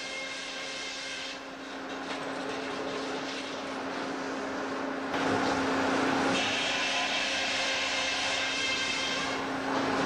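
Jackson Big Jack portable sawmill running: a steady mechanical hum and noise, growing louder about halfway in, with a high whine from the saw joining for about three seconds in the second half.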